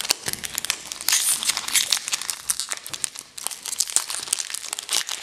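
Foil Pokémon Burning Shadows booster pack wrapper crinkling as it is handled and opened by hand, in dense crackles that come thickest about a second in and again near the end.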